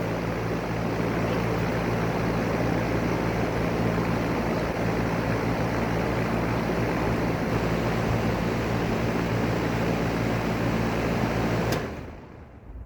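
American Standard Allegiance 13 air-conditioner outdoor unit running steadily with a low hum and fan noise, then shut off near the end: a click, the hum stops abruptly and the fan noise dies away.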